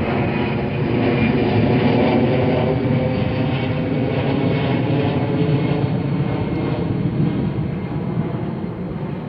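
A steady engine drone with a pitched, humming tone, easing slightly near the end.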